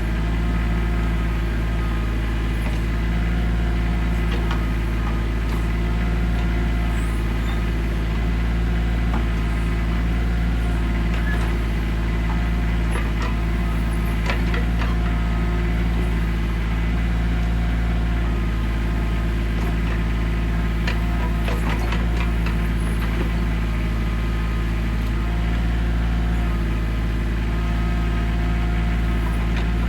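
Engine of a heavy machine running steadily at a constant speed, with a few faint clanks and scrapes, as dirt is pushed back from a bank.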